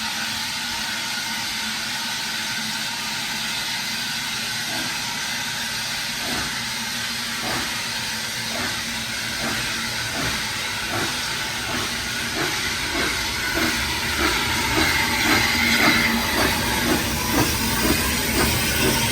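Steam locomotive hissing steam, then starting away: exhaust chuffs begin a few seconds in, slow at first and quickening and growing louder as the engine gathers speed.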